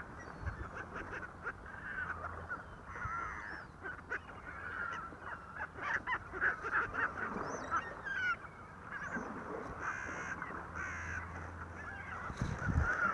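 A flock of birds calling, with many short, overlapping honking calls one after another.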